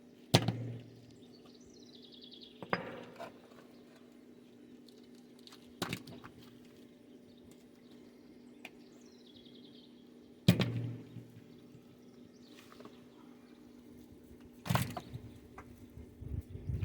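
Wooden concrete forms being knocked loose from a freshly hardened concrete landing: five sharp knocks a few seconds apart, each with a short dull ring.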